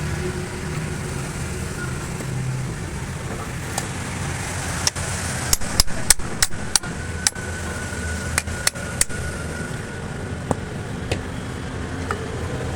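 Hammer striking metal: a quick series of about a dozen sharp taps in the middle, over a steady rumble of road traffic and engines.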